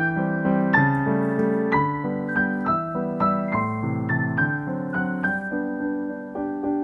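Piano music: a melody of struck notes, each ringing and fading, over lower chords.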